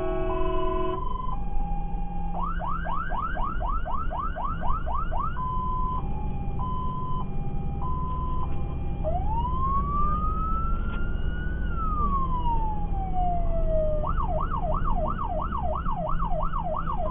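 Fire engine's siren switching through its patterns: a horn chord that stops about a second in, then a fast rising yelp, a hi-lo two-tone, one slow wail rising and falling, and the fast yelp again, about four sweeps a second. The truck's engine runs underneath.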